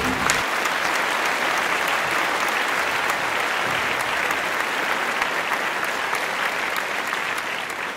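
Audience applauding: steady clapping that fades a little near the end.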